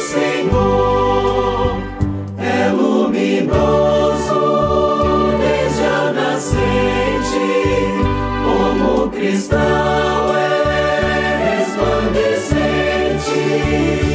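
Choir singing a hymn with instrumental accompaniment, in long held phrases.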